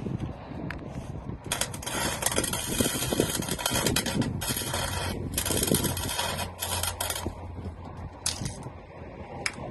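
Welding arc crackling in several bursts of a second or two, with short breaks between them, and a low steady hum under the middle bursts. A sharp click comes near the end.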